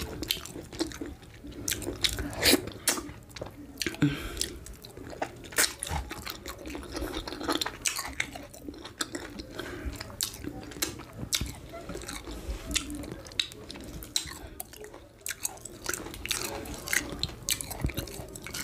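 Close-miked ASMR eating sounds of a person chewing amala with ewedu and gbegiri soup: irregular mouth clicks and smacks come thick and fast.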